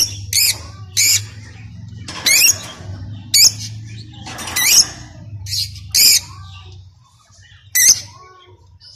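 Lovebirds giving about nine short, shrill squawks at irregular intervals, over a steady low hum.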